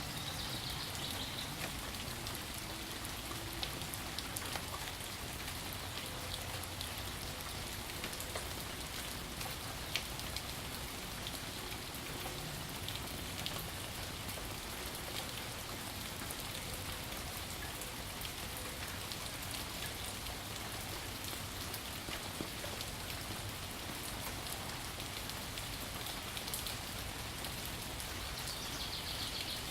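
Steady rain falling, a dense hiss of drops with many small individual drip ticks and an occasional louder drop.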